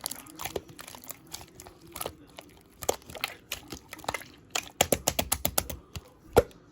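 Slime being squeezed and poked by hand, making a string of wet clicks and pops, with a fast run of about eight clicks a second around five seconds in and one louder pop near the end.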